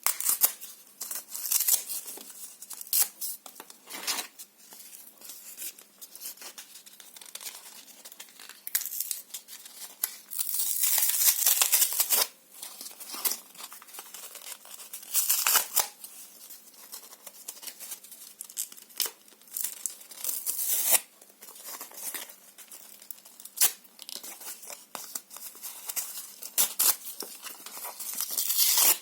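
Paper and cardboard being torn and crinkled in short, irregular rips, with one longer tear lasting about two seconds about ten seconds in.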